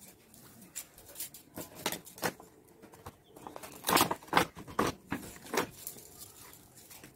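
Clear plastic packaging crinkling and rustling as it is handled, in a run of short irregular bursts, loudest about four to five seconds in.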